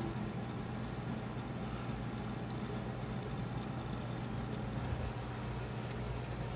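Rain chamber running: water falling and splashing steadily, with faint scattered drip ticks over a constant low hum from the water pump.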